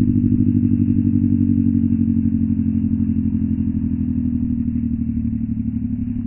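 Background music: a sustained low synthesizer chord with a fast, even pulsing throb, fading out near the end.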